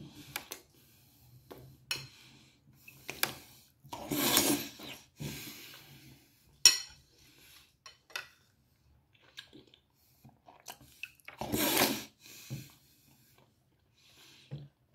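A fork clinking and scraping on a dinner plate, with scattered sharp clicks and two longer scrapes, about four seconds in and near twelve seconds.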